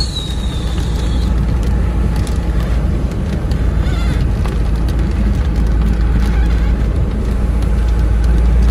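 Inside a car driving through heavy rain: a steady low engine and road rumble, rain on the windscreen, and the windscreen wipers sweeping, with a few short squeaks, one right at the start and two more about 4 and 6 seconds in.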